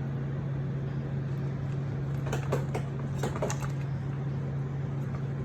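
A steady low hum, with a handful of light clicks and taps about two to three and a half seconds in.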